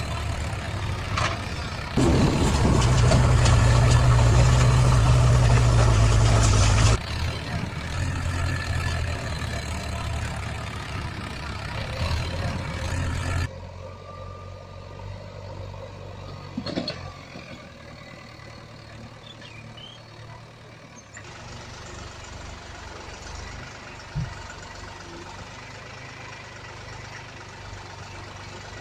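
A heavy vehicle's engine running steadily at a low hum. It is loudest between about two and seven seconds in, and its level and tone change suddenly about 13 and 21 seconds in. A single short knock comes near the end.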